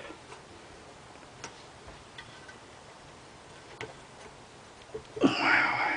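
A few faint, scattered metal ticks from a wrench working on the rocker arm adjustment nuts of a small engine's cylinder head, one nut stuck tight. A short spoken exclamation near the end.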